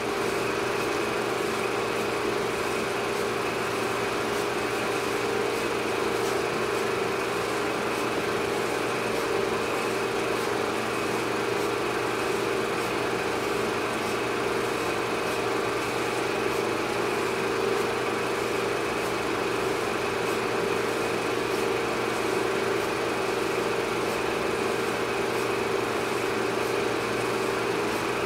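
A steady, unchanging mechanical drone with a constant hum.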